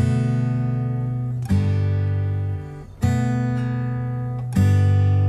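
Acoustic guitar music: slow strummed chords, a new chord struck about every second and a half and left to ring out.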